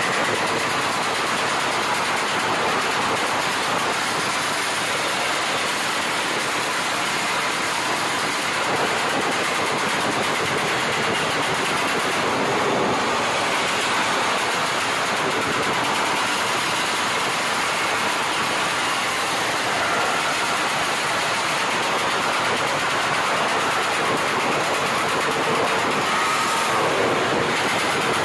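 Modified underbone motorcycle engine held at high revs for a test run, a loud steady mechanical buzz with small rises and dips.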